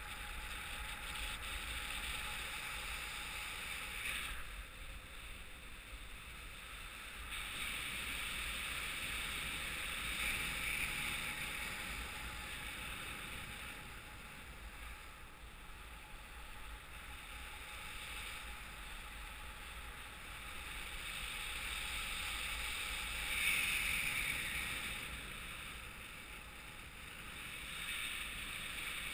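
Wind rushing over the camera microphone in paraglider flight: a steady hiss that swells and eases several times, loudest a little over three-quarters of the way through.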